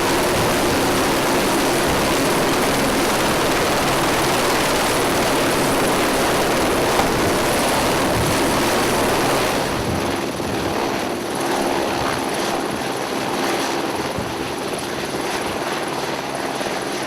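Helicopter close overhead, its rotor and engine running loud and steady. The noise eases a little about halfway through.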